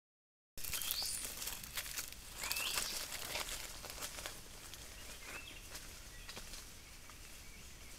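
Dry leaf litter crackling and rustling under a stump-tailed macaque's steps, busiest in the first few seconds and thinning out later. Several short bird chirps sound over it.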